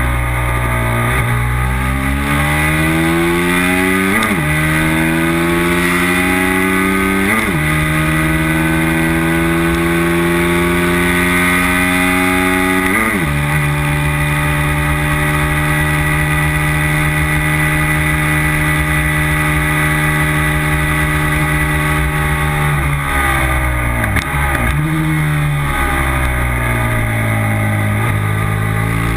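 Racing motorcycle engine at full throttle, climbing in pitch through the gears with quick upshifts about 1, 4, 7 and 13 seconds in, then holding steady high revs for about ten seconds. Near the end it drops through several quick downshifts under braking, then pulls up in pitch again.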